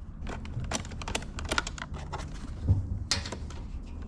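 Irregular small clicks and taps of screws, tools and plastic casing parts being handled while an inverter generator is taken apart, with a heavier knock about two and a half seconds in.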